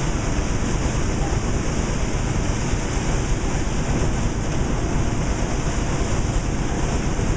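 Belt-driven cotton gin running: a steady, loud, even roar from its gin stands, cleaner drum, flat belts and pulleys.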